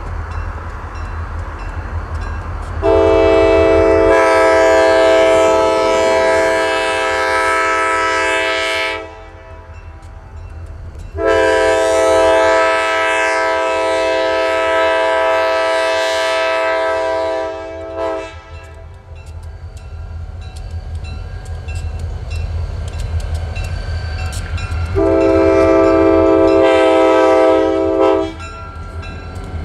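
Air horn of a Wisconsin & Southern EMD diesel locomotive sounding for a grade crossing: two long blasts and a shorter third near the end, each a chord of several tones. A steady low rumble from the passing train runs under the horn.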